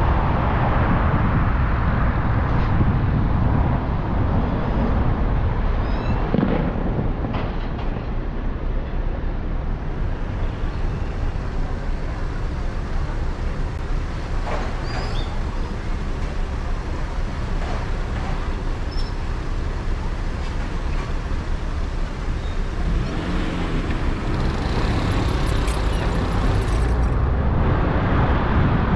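Road traffic noise from within a queue of cars at a light: a steady low rumble of idling engines, quieter while the traffic is stopped and growing louder about three-quarters of the way through as the traffic moves off.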